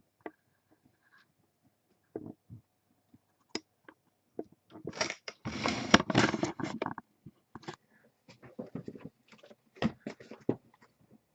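Objects being handled on a desk: scattered clicks and knocks, with a louder rustling stretch about five to seven seconds in, as the box of trading cards is brought out.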